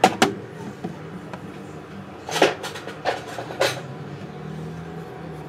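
Small steel hand tools clinking and tapping on a jeweller's bench during stone setting. There are two quick clinks at the start, then three more between about two and four seconds in, over a low steady hum.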